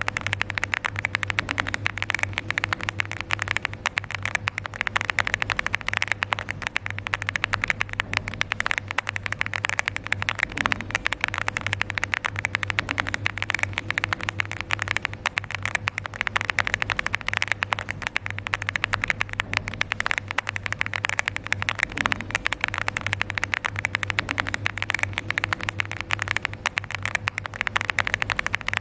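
Fast, continuous typing on a LEOBOG Hi8 mechanical keyboard with Barbie switches: a dense stream of keystroke clacks over a faint steady hum.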